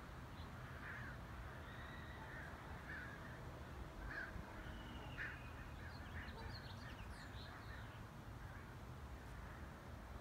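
Faint crow caws now and then, with a few thin chirps of other birds, over a low steady background rumble.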